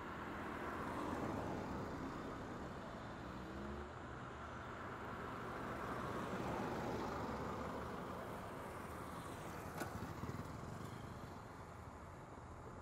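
Road traffic passing: engine and tyre noise of cars swelling as they go by, twice, with a short rising engine note early on and a single sharp click late on.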